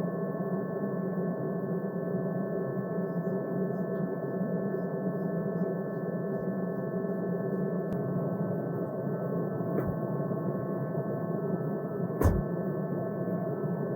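A steady drone of several held tones that does not change, with two short low thumps near the end.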